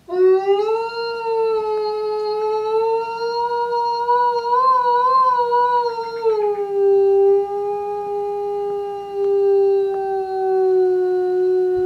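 A male Eastern timber wolf gives one long howl that rises at the start and holds steady, with a brief wavering in the middle. About halfway through it drops to a lower pitch and slowly sinks further.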